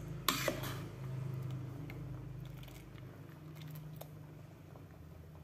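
A metal spoon clinks against an aluminium cooking pot once, about half a second in, as it is lifted from a pot of coconut-milk vegetable stew. A few faint ticks follow over a low steady hum.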